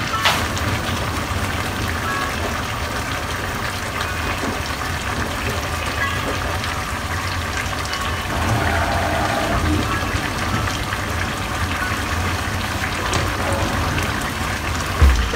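Ginisang monggo (mung bean soup with chicken and malunggay leaves) simmering steadily in a frying pan on the stove.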